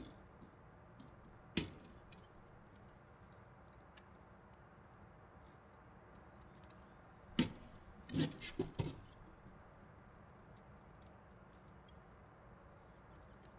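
Metal rod elements of a yagi TV antenna being twisted and snapped into their locking clips on the boom: a sharp click about a second and a half in, a lighter one around four seconds, and a run of clicks and rattles between about seven and nine seconds.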